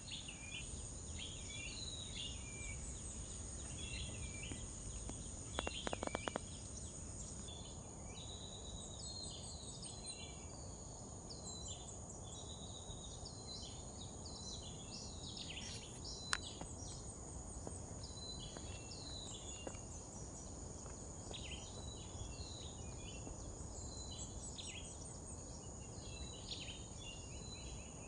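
Field ambience: a steady high-pitched insect drone with many short bird chirps and calls throughout, over a low rumble. A brief cluster of clicks about six seconds in.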